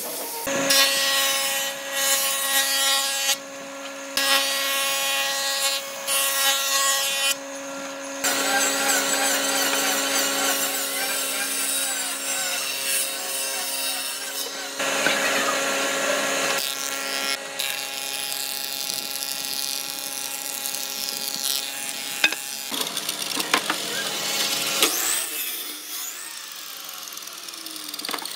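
Power tools working pine boards. A sanding drum on a handheld grinder runs against the wood in several short bursts, then steadily, with a motor hum and a high warbling squeal. Woodworking machines follow, running through boards.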